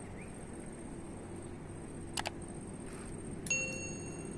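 Subscribe-button animation sound effect: a quick double mouse click about two seconds in, then a bell-like notification ding about a second later that rings briefly, over a steady outdoor background hiss.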